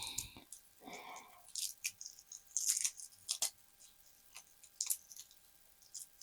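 Dry, papery garlic and shallot skins crackling and crinkling as they are peeled off by hand, in short irregular bursts of small crackles and clicks.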